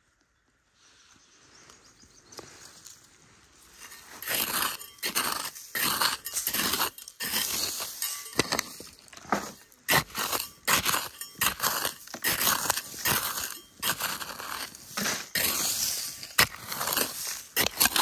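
Small metal hand trowel scraping and digging into dry, gravelly soil: rapid, irregular scrapes and crunches of grit and pebbles, starting about four seconds in.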